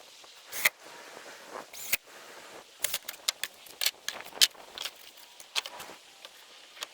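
Hand work on a wooden nest box: about a dozen sharp, irregular clicks and clacks, bunched in the middle of the stretch, over a faint hiss.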